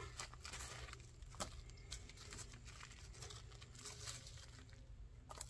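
Faint rustling and scattered light taps from harvested sweet potatoes and garden soil being handled.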